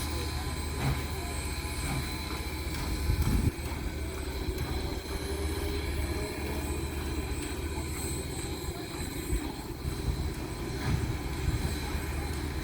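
Steady low rumble, with a louder swell about three seconds in and a few faint knocks.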